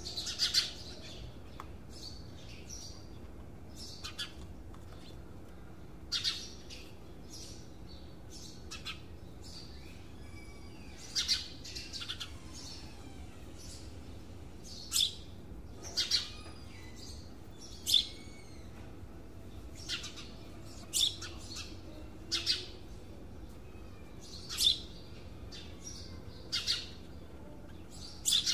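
Birds chirping: short, separate high calls every second or two, some sliding down in pitch, over a faint steady background hum.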